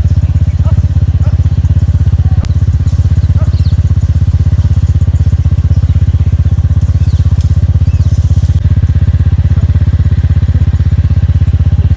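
Motorcycle running while being ridden on the road: a loud, steady low rumble with a rapid, even pulse.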